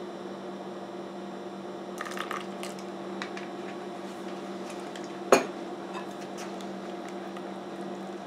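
Kitchen utensil clinks over a steady low electrical hum: a few light clicks, one sharp clink about five seconds in, then small taps as a wire whisk starts stirring egg batter in a glass mixing bowl.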